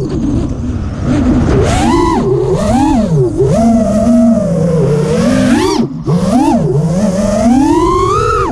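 5-inch FPV quadcopter's brushless motors and propellers whining up close, the pitch swooping up and down again and again as the throttle changes, with a rush of air underneath. The motors drop away briefly about six seconds in, then wind back up to a high whine near the end.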